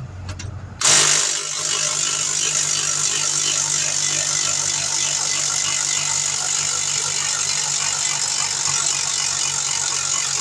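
Pneumatic impact wrench spinning the lug nuts onto a car wheel. It starts suddenly about a second in, runs continuously for about nine seconds at an even level, and stops abruptly.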